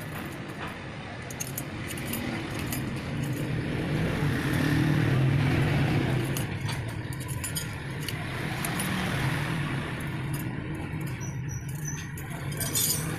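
Steel motorcycle wheel spokes clinking against one another and against the alloy hub as they are threaded by hand through the hub flange holes: irregular light metallic clicks and rattles. A steady low rumble runs underneath.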